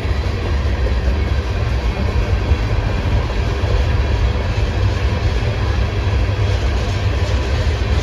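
Manifest freight train's boxcars and covered hoppers rolling past steadily, their wheels running over the rails.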